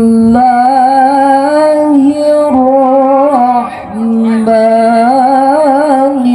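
A single voice chanting Quran recitation in a long melodic tarannum style: held notes with wavering ornaments, breaking off briefly about two seconds in and again about four seconds in. The reciter has flu and a heavy cough, and the voice sounds nasal.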